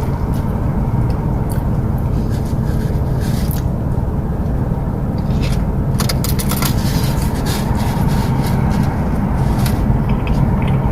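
Eating sounds from pulling apart and chewing a barbecue pork rib: scraping, crackling clicks, thickest about six seconds in, over a steady low hum.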